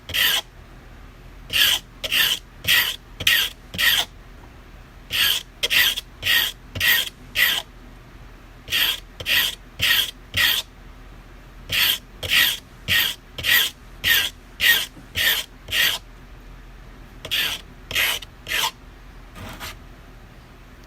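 Steel carving-knife blade being rubbed back and forth by hand on 220-grit sandpaper glued to a plywood board, grinding the back edge down to form a new tip after the old one broke. Short rasping strokes come about two a second in runs of five to nine, with brief pauses between runs.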